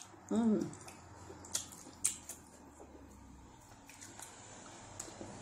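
Close-up eating sounds of fufu with ogbono soup: soft wet squishes and a few sharp mouth clicks. A brief hum of the voice comes just after the start.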